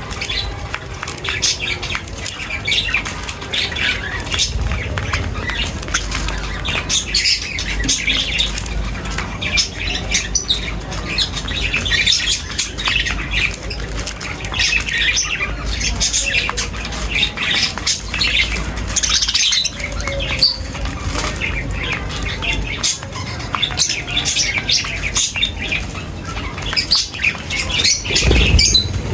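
A flock of small birds chirping and squawking continuously while feeding, with frequent short, sharp calls and the flutter of wings.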